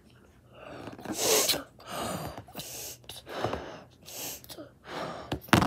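A child blowing up a latex balloon by mouth: repeated sharp gasping breaths in, each followed by a puff of air blown into the balloon. There is a sharper, louder puff near the end.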